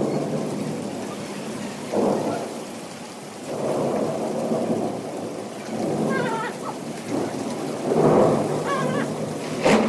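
Thunderstorm: steady rain with rumbles of thunder swelling and fading every few seconds. An animal gives a short call twice, in the second half.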